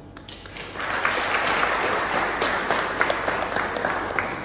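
Hand clapping: a few people applauding, starting about a second in and going on steadily.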